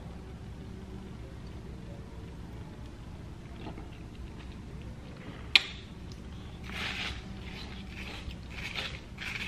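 Close-up eating sounds of a person eating a red icy dessert with a plastic spoon over a low steady room hum. A single sharp click comes about halfway through, then a run of uneven scraping and wet mouth noises near the end as the spoon digs into the ice.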